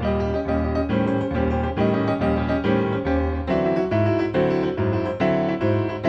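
Piano accompaniment music with a steady, bouncy beat of chords, about two or three a second.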